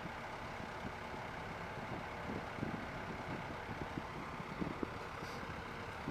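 Construction site noise: a heavy vehicle engine running steadily, with scattered low knocks and thumps.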